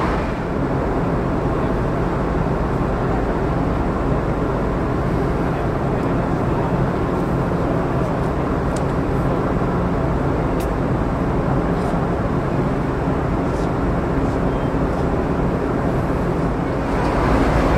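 Steady drone of a Ferry Sunflower car ferry underway: a low engine hum under an even rush of wind and water.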